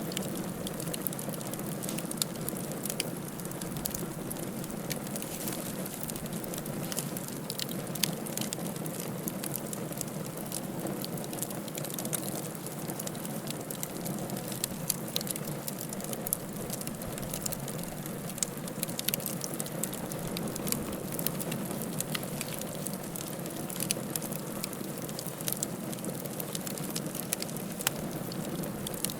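Wood fire crackling in a fireplace: a steady low rush of burning with frequent small sharp pops and snaps scattered irregularly throughout.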